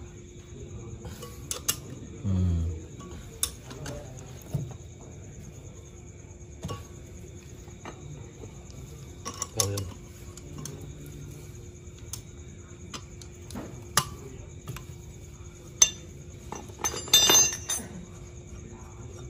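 Metal hand tools and parts clinking and knocking now and then during motorcycle engine work, with a quick cluster of ringing metallic clinks near the end, over a faint steady hum.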